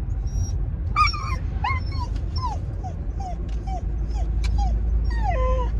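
A dog whining in a moving car: a quick run of short whimpers that each drop in pitch, about two a second, ending in one longer falling whine. The car's low rumble runs underneath.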